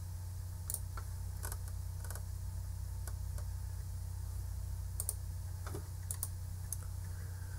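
A steady low hum with about a dozen small sharp clicks scattered irregularly through it.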